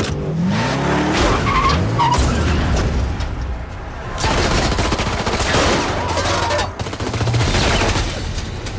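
Action film sound effects: a car engine revving up in the first couple of seconds, then a long run of rapid automatic gunfire in the middle.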